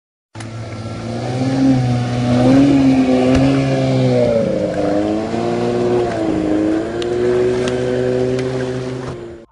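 Motorboat engine running, its pitch wavering up and down as it revs, over a steady low hum; it starts just after the start and stops shortly before the end.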